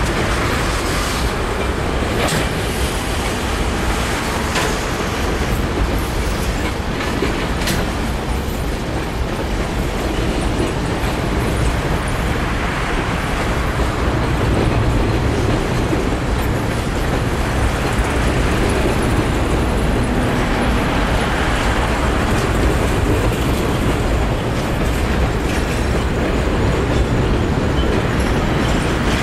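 Freight train of refrigerated boxcars and covered hoppers rolling steadily across a railroad bridge: a continuous rumble of wheels on rail, with occasional sharp clacks of wheels over rail joints.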